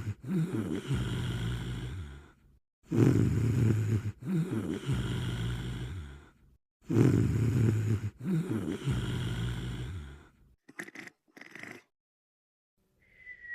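Snoring, sped up and pitched up: three long snores about every four seconds, then two short snuffles and a brief high falling squeak near the end.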